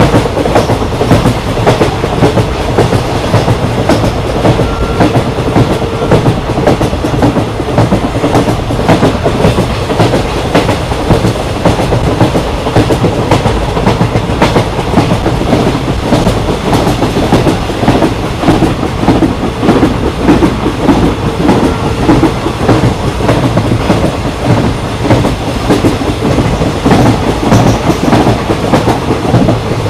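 Indian Railways ICF passenger coach running at speed, heard from inside: steady wheel-on-rail rumble with rhythmic clickety-clack over rail joints and constant rattling of the coach body.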